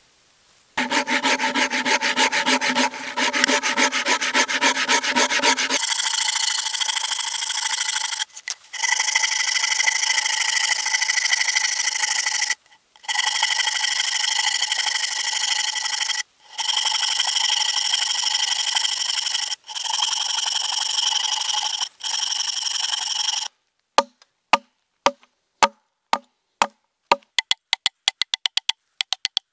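Hand saw cutting into a wooden log: a loud, rasping run of rapid back-and-forth strokes, broken by short pauses every few seconds. Near the end the sawing stops and gives way to separate sharp knocks on the wood that come faster and faster.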